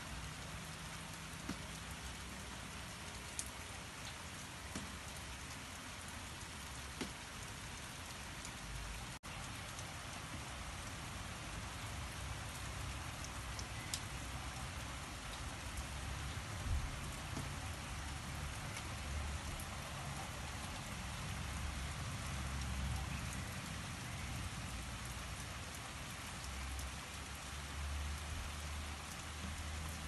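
Steady rain falling, a continuous hiss with scattered close drops ticking, over a low rumble that grows stronger in the second half.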